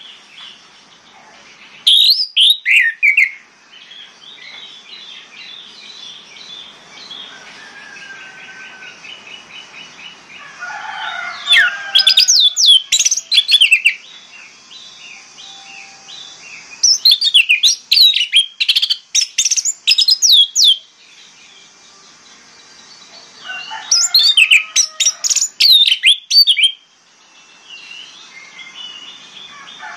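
Orange-headed thrush (anis merah) singing: four loud bursts of rapid, sharp, high notes, the longer ones lasting a few seconds, with softer continuous twittering and a short trill in between.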